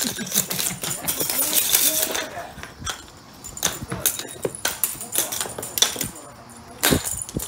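A cat's paws and claws scrabbling and thumping on a hardwood floor as it chases and pounces on a string toy: quick, irregular taps and knocks.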